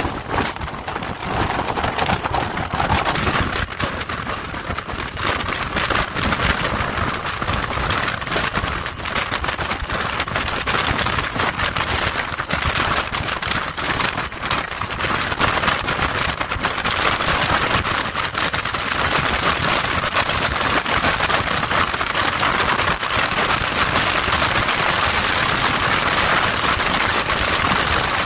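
Wind rushing and buffeting on the microphone of a motorcycle riding at road speed, a steady loud roar of air noise.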